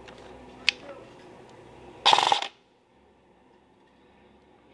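Airsoft rifle firing a short rapid burst of about half a second, about two seconds in, a fast clatter of shots. A single sharp click comes just before, under a second in.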